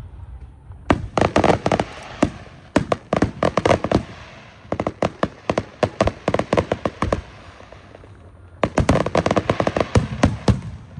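Electronic fireworks crackling in rapid, firecracker-like volleys of sharp bangs. There are three volleys, starting about a second in, with a brief lull before the last one about two-thirds of the way through.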